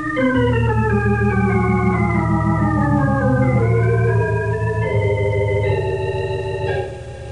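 Organ music bridge between radio-drama scenes: sustained chords sliding slowly downward over a held bass note, then climbing and stepping up to a held chord that drops away near the end.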